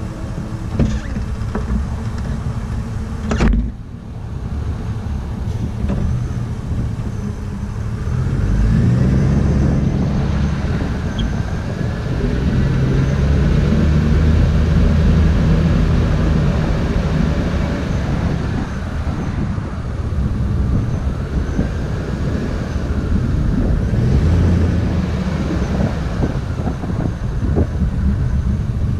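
Truck engine heard through a hood-mounted camera, running and pulling away as the truck drives off, its pitch rising and falling with the throttle. A single sharp knock about three and a half seconds in.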